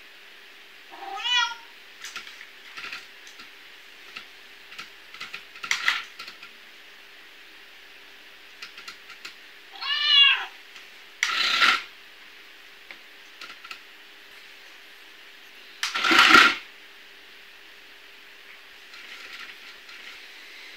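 Recorded cat meows played from a speaker hidden in a box: one about a second in and another about ten seconds in, each a single rising-and-falling call. Between them come scattered soft clicks, and two short, loud noisy bursts, the loudest sounds, at about eleven and sixteen seconds.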